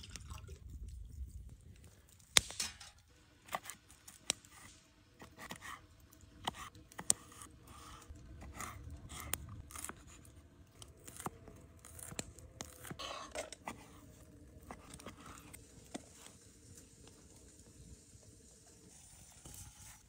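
Scattered sharp knocks and clicks of camp-cooking work: a knife on a wooden cutting board and metal pots and utensils being handled, at irregular intervals.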